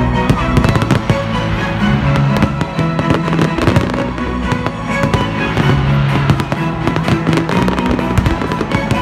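New Year's fireworks going off: many sharp bangs and crackles in quick, irregular succession throughout, over loud music with held low notes.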